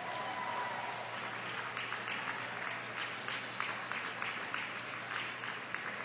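Audience applauding, many hands clapping at once in a steady patter.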